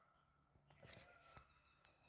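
Near silence: faint outdoor ambience with faint bird calls and a few soft clicks around the middle.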